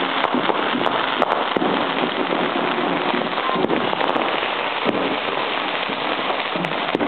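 Fireworks and firecrackers crackling without a break, a dense rain-like crackle with a few sharper pops now and then.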